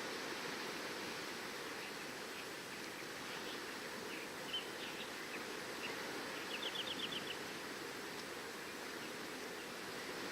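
Steady rushing of surf on the seashore, with small birds chirping over it; a quick trill of about eight notes comes a little past the middle.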